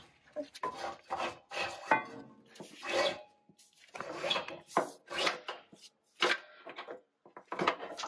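A power steering hose being pulled and pushed through the bus chassis, rubbing and scraping against the frame in a run of short, irregular strokes, roughly one or two a second.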